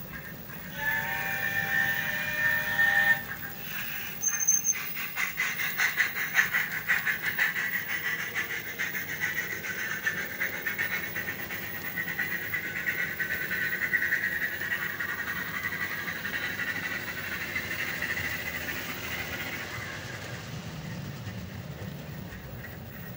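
Steam sound from the digital sound decoder in an N-scale Minitrix LNER A4 Pacific model locomotive, played through its tiny onboard speaker: a chime whistle held for about two seconds, then fast, even exhaust chuffs that start about four seconds in and carry on, growing fainter in the second half.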